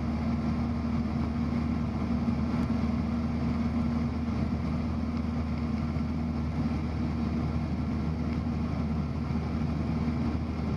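Cessna 172's piston engine and propeller running steadily, heard as an even drone inside the cabin with no change in pitch.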